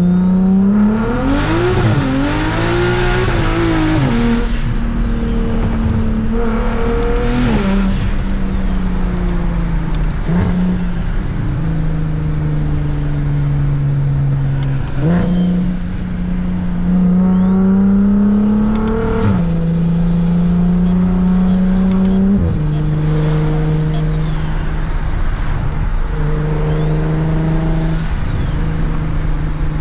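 A BMW 335is's single-turbo N54 straight-six accelerating through the gears. The engine pitch climbs and drops back at each of several gear changes, with a high turbo whistle rising and falling on the harder pulls.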